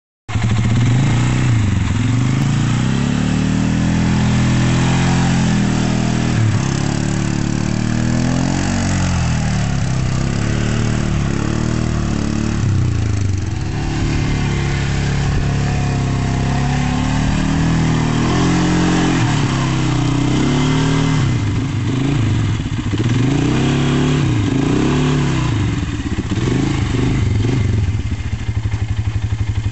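Polaris Sportsman 450 ATV's single-cylinder four-stroke engine revving up and down again and again as the quad works through deep mud, the pitch rising and falling throughout.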